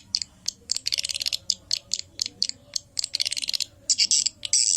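Swiftlet lure call, a recording of edible-nest swiftlet calls: sharp dry clicks, several a second, broken by buzzy chittering trills that grow louder near the end. It is the 'suara tarik' sound played to draw swiftlets into a nesting house.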